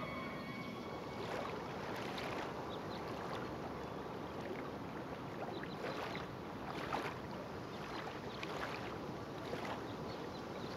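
Lakeside ambience: a steady hiss of wind and lapping lake water.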